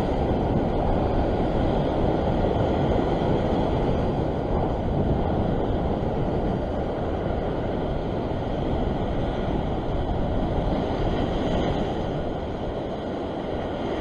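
Ocean surf washing over the rocks, mixed with wind rumbling on the microphone: a steady, even rush without distinct events.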